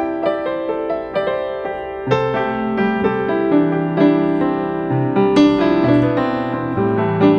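Piano music, a run of single notes with lower bass notes joining about two seconds in.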